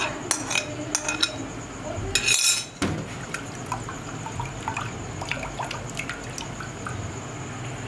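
Grated potato shreds and their soaking water tipped from a glass bowl into a stainless steel mesh strainer. The glass clinks against the strainer a few times, water pours through in a short splash about two seconds in, then drips from the strainer into the bowl below.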